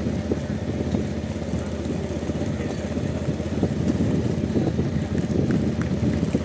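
Motorcycle engine running steadily, a low continuous drone.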